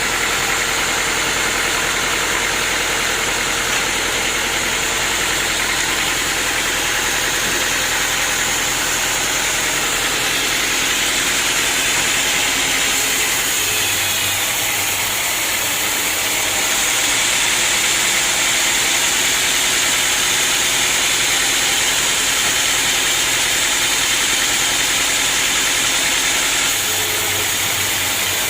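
Sawmill machinery running steadily with a saw cutting wood, a loud continuous noise heavy in the upper range. The low hum drops out about halfway through, and the noise grows a little louder for several seconds before easing back near the end.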